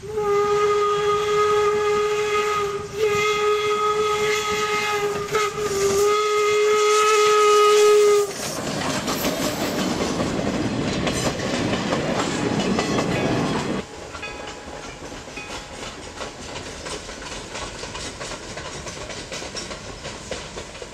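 A 4-4-0 steam locomotive blows its whistle in long, steady blasts for about eight seconds, with two brief breaks. The whistle stops, and the passenger coaches roll past close by with a wheel clatter. After a sudden drop in level, the train is heard more faintly and steadily in the distance as it crosses a bridge.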